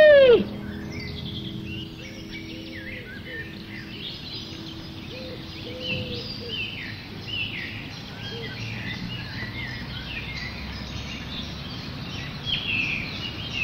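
Woodland birdsong: several birds chirping and singing throughout, in short high calls and quick downward slurs, over a steady outdoor hiss. A woman's voice exclaims loudly for a moment at the very start.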